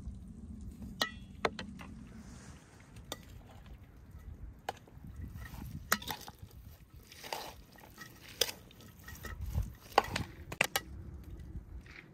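Chopped meat being seasoned and mixed in an enamel bowl: scattered sharp clicks and taps of a spoon against the bowls, with soft rustling as spices and chopped greens go in and the mixture is stirred.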